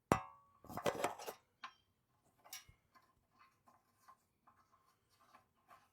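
A sharp metallic clink at the start, then a quick cluster of clicks and scattered faint ticks: hand tools and metal fittings being handled as a compression tester is hooked up to the small engine.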